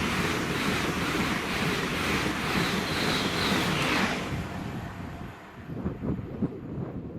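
Train passing through at speed on the East Coast Main Line: a loud rushing of wheels and air that drops away suddenly about four seconds in, leaving a fainter low rumble with a few knocks.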